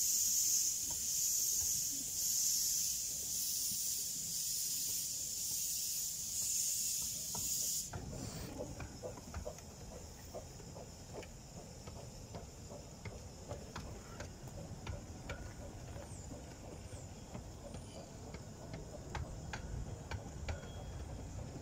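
The steam locomotive Green Goddess, a 15-inch-gauge Pacific, hisses loudly in rhythmic pulses as it sets off, and the hiss cuts off suddenly about eight seconds in. Then its train of coaches rolls past with a low rumble as the wheels click over the rail joints.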